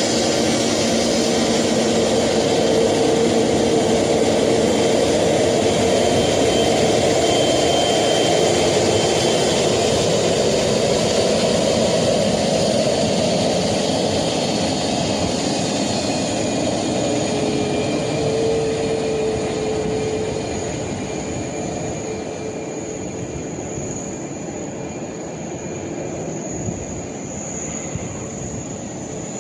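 Jet engines of a Boeing 737 MAX (CFM LEAP-1B) running as the airliner taxis: a steady rush with a thin high whine over it, growing quieter about two-thirds of the way through.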